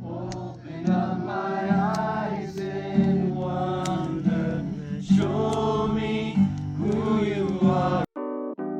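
Background music with sung, choir-like vocals over a steady low bass; it cuts off abruptly near the end and a piano comes in.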